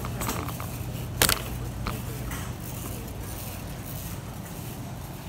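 Warehouse-store background: a steady low hum and distant voices, with a sharp knock about a second in and a lighter one shortly after.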